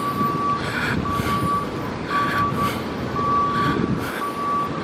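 A vehicle back-up alarm beeping, one high single-pitched beep about once a second, over street traffic noise.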